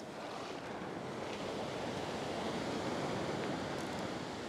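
Ocean surf breaking and washing up a sandy beach, swelling louder about two to three seconds in and easing off near the end.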